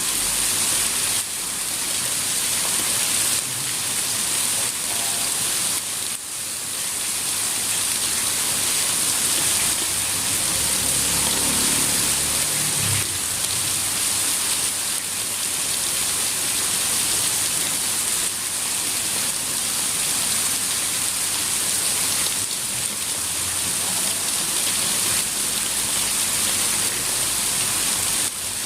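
Steady rain pouring down and pattering on surfaces, an even hiss that does not let up.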